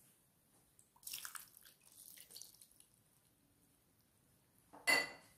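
Water poured from a glass onto chopped mallow greens in a cooking pot: a short splashing trickle about a second in. Near the end comes a sharp, ringing clink.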